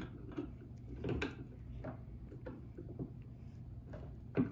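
Screw being tightened into a Bakelite pistol grip on a VZ58 rifle: scattered small clicks and knocks of screwdriver and rifle being handled, with one louder knock near the end.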